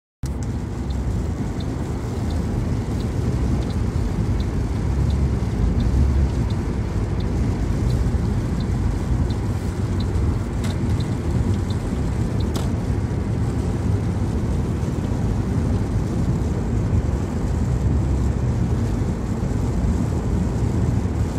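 Steady road and engine noise inside a Toyota car cruising on a wet motorway. A light, regular ticking about twice a second runs through the first dozen seconds, with a couple of sharper clicks near its end.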